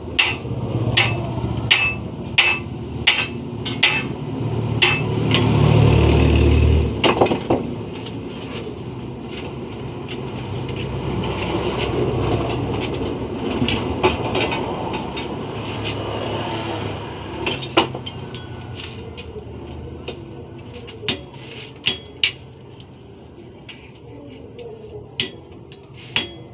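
Hammer blows ringing on metal at about one and a half strikes a second, typical of forging or straightening a plough part on an anvil. After about five seconds the strikes give way to a louder low rumble and a rushing noise, and a few scattered strikes return near the end.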